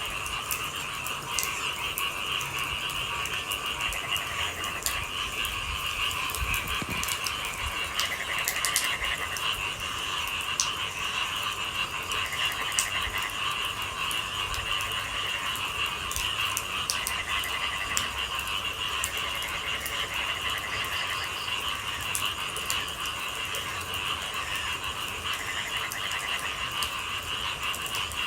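A night chorus of frogs calling continuously, with trilling calls that come and go, over scattered drips of rain.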